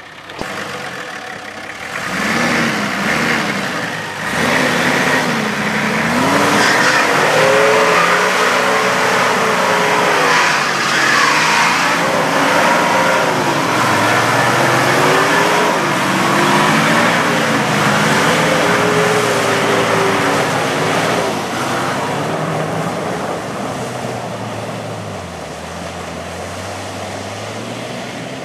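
Nissan Patrol Y60's 4.2-litre diesel engine revving hard under load off-road, its pitch rising and falling again and again as the throttle is worked, with tyres churning through mud and water. The engine is loud for most of the stretch and eases over the last few seconds.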